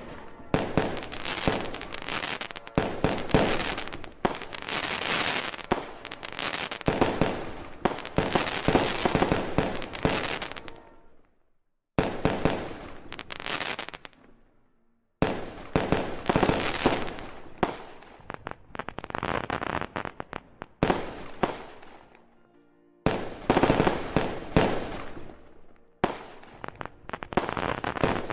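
Aerial fireworks display: shells bursting and crackling in rapid volleys, with a few brief lulls between barrages.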